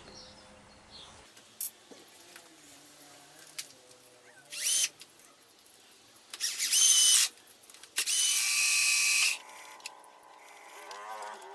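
Cordless drill drilling a centre hole in a small steel part, run in three short bursts with a high whine, each longer than the last.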